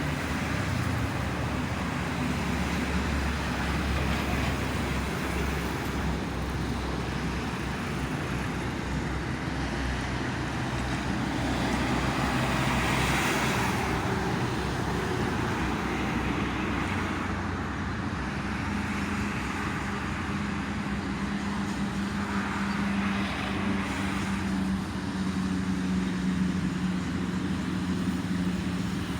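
Steady road traffic on a toll road, with vehicles swelling past about thirteen seconds in and again near the end, over a low engine hum.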